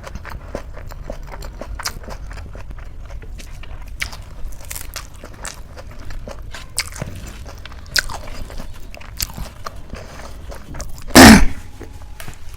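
Close-up eating sounds: wet chewing, lip smacks and mouth clicks from a person eating rice with chole gravy. About 11 seconds in, one very loud, short thump rises well above everything else.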